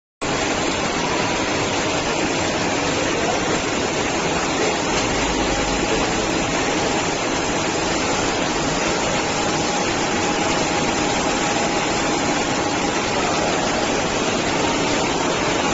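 Steady, even noise of a gypsum board production line running, with a faint steady hum in it.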